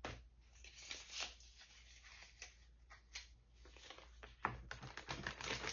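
Light handling noises in a small room: scattered soft clicks and rustles, with a sharper click about four and a half seconds in, over a low steady hum.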